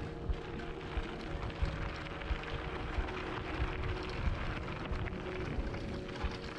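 Mountain bike rolling fast down a dirt trail, heard from a mounted action camera: steady tyre noise over gravel and dry leaves, with frequent irregular thumps as the bike and camera mount jolt over bumps.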